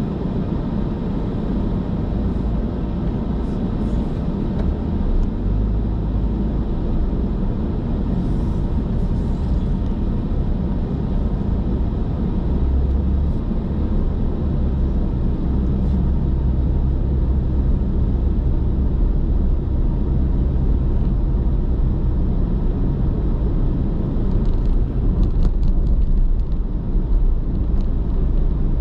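Car cruising at highway speed, heard from inside the cabin: a steady low rumble of tyres on the road and the engine.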